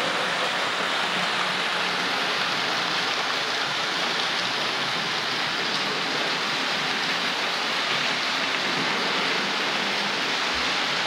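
Hornby OO-gauge Class 5 model locomotive hauling a long rake of ten coaches around the track. A steady rushing rattle of many small wheels on the rails, with a faint motor hum underneath.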